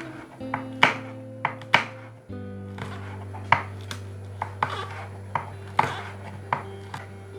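Knife chopping on a cutting board: a dozen or so sharp, irregularly spaced strokes over background music with sustained notes.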